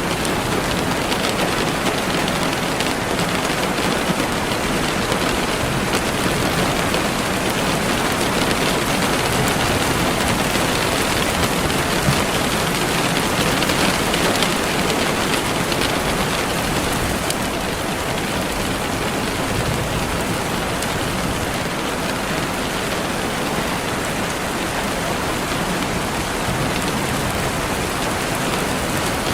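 Steady rain falling, an even hiss of drops on surfaces with no thunder or other sounds standing out.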